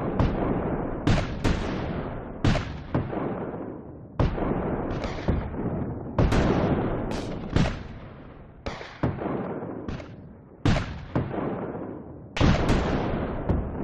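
Tank cannon firing over and over, about a dozen sharp blasts each trailing off into a rumbling decay. The shots come a second or two apart, some in quick pairs.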